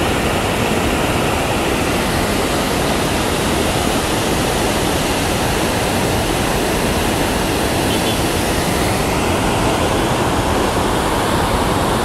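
White-water rapids and a small waterfall rushing over rock: a loud, steady rush of water.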